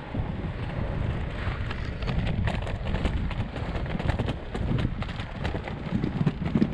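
Three-wheel inline skate wheels rolling over rough pavement: a steady low rumble with many small clicks and ticks.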